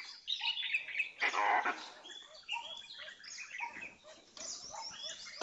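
Many short chirping and whistling animal calls in quick succession, with a brief, harsher call about a second and a half in.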